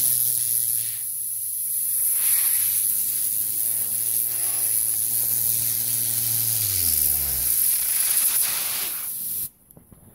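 Compressed air from an air compressor hissing steadily as it blows a spinner up to speed, with a low hum underneath that slides down in pitch and fades about seven seconds in. The air cuts off suddenly near the end.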